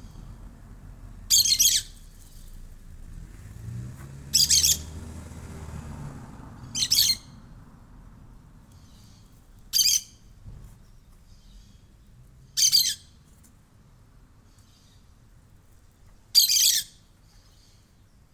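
Parakeets calling: six short, high calls a few seconds apart.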